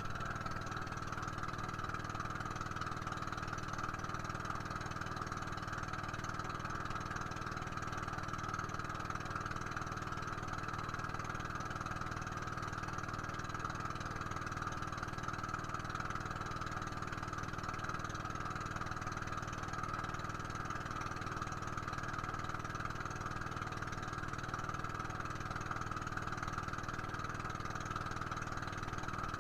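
Small boat's engine running steadily at an even speed, with no change in pitch or level.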